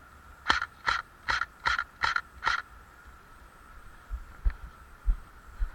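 Airsoft gun firing six quick shots in about two seconds, then a few dull thumps near the end.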